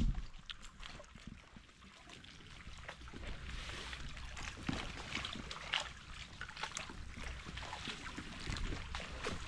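Water trickling and dripping around a kayak, with many small irregular ticks and splashes.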